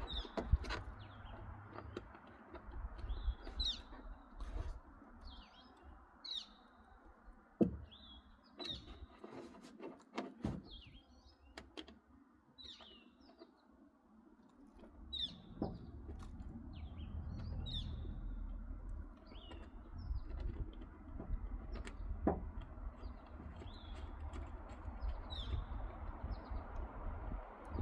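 A small bird chirping over and over, short high calls about once a second, with scattered sharp clicks and knocks and a low rumble underneath.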